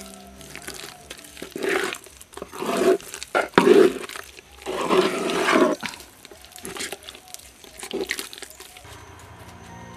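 A hand kneading and squeezing a sticky banana, flour and syrup batter in a clay pot, in a handful of irregular strokes, the longest about a second long in the middle.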